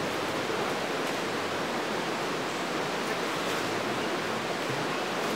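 Shallow river rushing steadily over rocks: an even, unbroken water noise.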